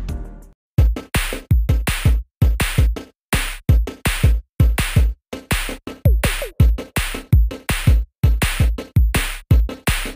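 Background electronic music with a drum-machine beat and deep bass hits, the sound cut into short chopped pieces with silent gaps between them.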